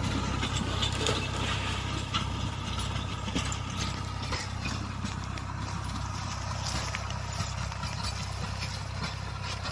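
Tractor diesel engine running steadily at a low, even speed, with irregular light clanks and rattles over the engine note.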